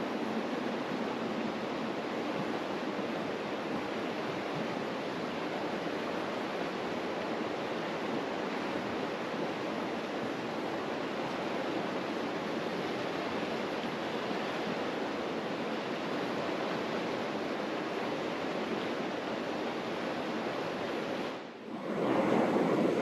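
Mountain river rushing steadily, a dense even roar of flowing water. Near the end it drops out for a moment and comes back louder.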